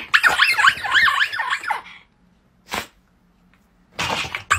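Small long-haired terrier-type dog giving a high-pitched yowl for about two seconds, its pitch wavering rapidly up and down. A short breathy huff follows after a pause, and a longer breathy sound comes near the end.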